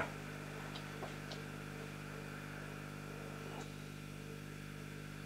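Steady low hum of room tone, with a few faint ticks.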